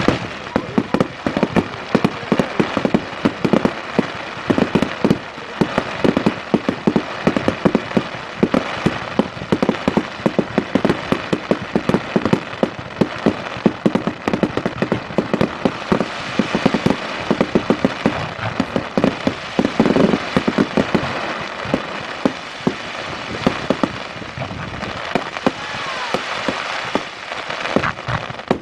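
Fireworks display at full tilt: a dense, unbroken barrage of bangs and crackling, several reports every second.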